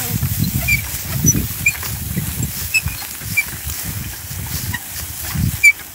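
An ox team hauling wooden ploughs through dry, loose soil: irregular low thuds and scuffs of hooves and ploughshares. Short high chirps are scattered throughout, and two sharp clicks come near the end.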